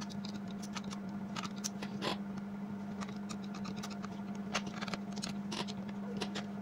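Small scattered clicks and scraping from a screwdriver backing a small screw out of a laptop's plastic bottom case, with a steady low hum underneath.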